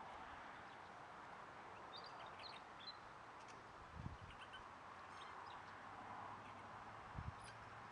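Faint outdoor quiet with small birds chirping now and then over a steady low hiss, and two soft low thumps, one about halfway through and one near the end.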